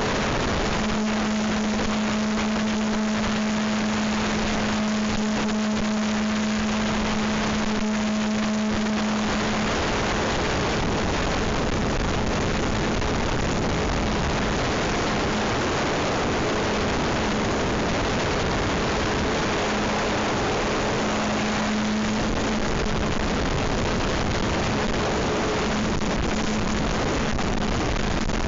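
Goosky E2 electric RC helicopter in flight: a steady motor and rotor hum under heavy rushing wind noise. The hum is clearest for about the first nine seconds, then comes and goes under the wind.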